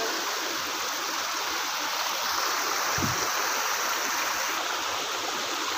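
A small rocky stream cascading over boulders, running in a steady rush of water. There is a single brief low thump about three seconds in.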